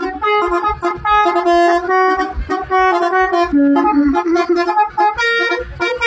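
Background music: an upbeat tune with a quick melody of short notes over a steady beat.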